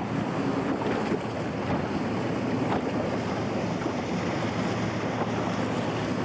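Steady wind rushing over the camcorder microphone, with a low steady hum underneath.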